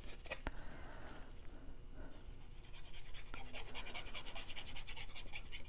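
Light, quick, evenly repeated scratching and rubbing on paper, with a single tap about half a second in.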